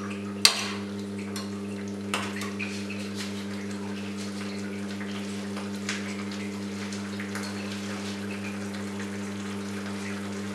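A steel ladle clinks sharply against a steel kadai about half a second in, and more lightly about two seconds in. Between the clinks, thick masala gravy with paneer bubbles and sputters softly over high heat, over a steady low hum.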